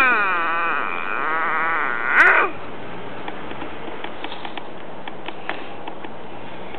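A pet's funny vocal noises: a wavering, warbling call over the first two and a half seconds, loudest at the start and again just after two seconds. After that only faint clicks.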